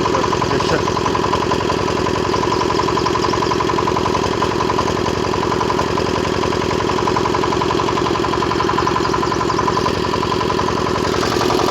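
Diesel generator engine running steadily at a constant speed.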